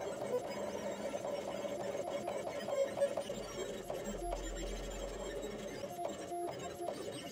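Desktop vinyl cutter cutting a design: its motors whir as the rollers shuttle the vinyl sheet back and forth and the blade carriage moves, the pitch stepping up and down with small ticks.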